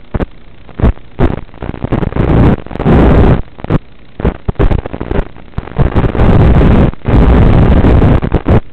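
Hiss from an analog FPV video receiver's audio channel, broken by loud bursts of harsh static. The bursts cut in and out, some brief and some about a second long, as the video link from the quadcopter weakens and breaks up.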